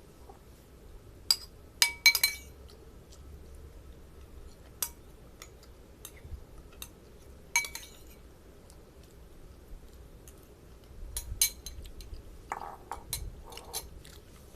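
Eating utensil clinking against a dish during a meal of noodles: a dozen or so sharp, irregularly spaced clinks, some ringing briefly, the loudest in a cluster about two seconds in and another near eleven seconds.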